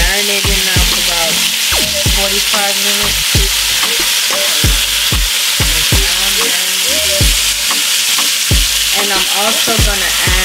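Oxtail sizzling as it browns in hot olive oil in a pot, with a steady hiss, while a fork turns and stirs the pieces.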